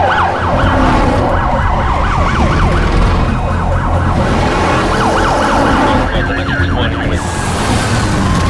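Several police sirens sounding over one another, sweeping rapidly up and down in pitch, over the low rumble of car engines.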